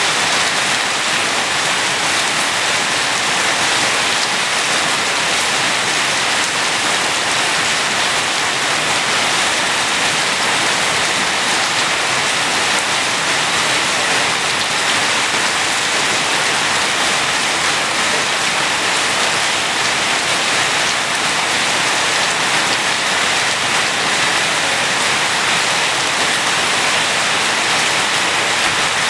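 Steady, even rain falling and pattering on surfaces.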